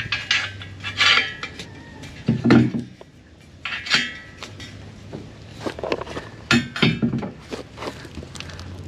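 Steel pallet fork parts clanking and clinking as they are handled and fitted onto a tractor's loader bucket: irregular sharp metal knocks, with a low steady hum underneath.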